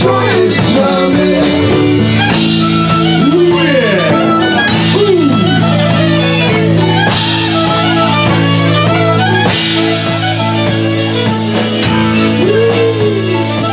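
Live band playing at full volume: drum kit keeping a steady beat under electric bass and guitar, with some sliding notes.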